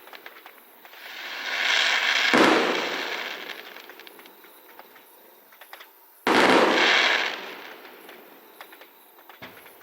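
Two aerial fireworks bursting about four seconds apart. Each is a sudden boom followed by a fading crackle of small pops.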